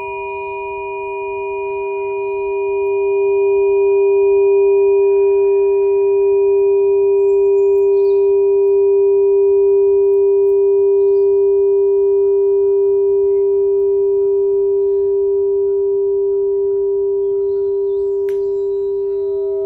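Sustained ringing musical tones, several pitches held together, swelling over the first few seconds. Near the end a sharp click sounds and a new ringing tone joins.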